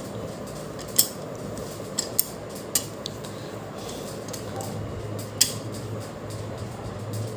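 Foldable laptop stand being handled and adjusted: a few sharp clicks and clacks of its parts, the loudest about a second in and another past five seconds, over a low steady hum.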